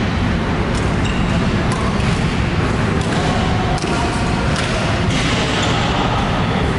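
Badminton rally: sharp racket strikes on the shuttlecock, about four over a few seconds, against the steady noisy din of a large sports hall.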